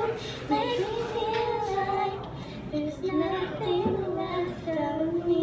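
A girl singing a song through a microphone, holding a long steady note near the end.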